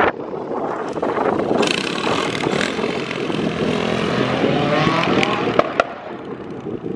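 Motorcycle engine revving, its pitch climbing in several rising glides near the middle as the bike accelerates.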